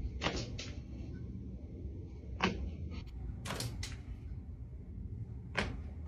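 Spinal joints popping under a massage therapist's bare feet as she stands on a client's back: six sharp cracks, a pair just after the start, one about two and a half seconds in, another pair a second later, and one near the end, over a low steady hum.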